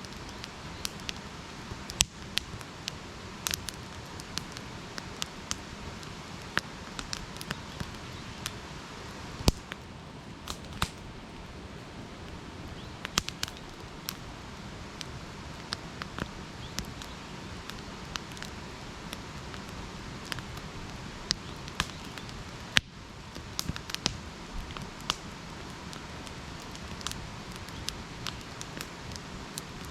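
Wood campfire crackling, with irregular sharp pops scattered throughout and a few louder ones.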